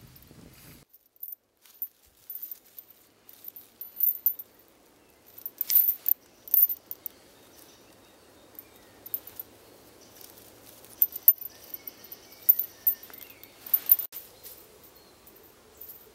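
Steel snap hooks clinking and clicking as they are handled, in several short clusters of sharp metallic clinks.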